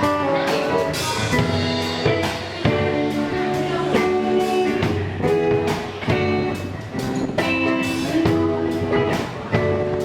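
Rock band playing an instrumental passage with no singing: guitar notes and chords over a steady drum kit beat.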